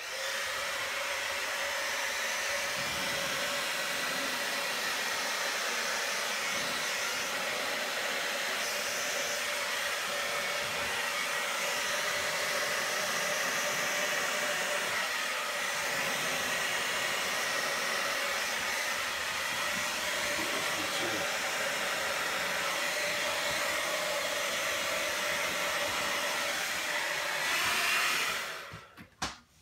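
Electric air blower running steadily, blowing air over wet resin on a board. It is switched off near the end and winds down.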